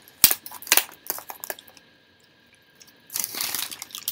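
Close-up handling noise: a string of sharp clicks and knocks, then a quiet second, then a short burst of rustling about three seconds in.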